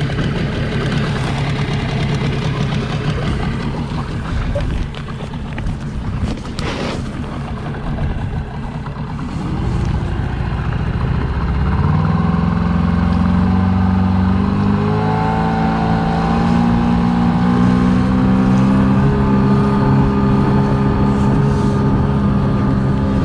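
Small petrol outboard motor pushing an inflatable boat along, with wind and water noise mixed in. About halfway through, the engine note firms up into a steady hum that rises a little in pitch as it speeds up.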